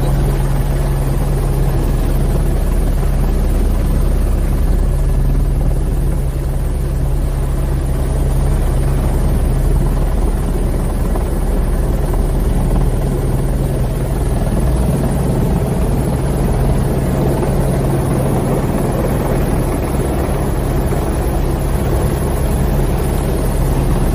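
Helicopter engine and rotor heard from inside the cabin: a steady, loud drone with a constant low hum.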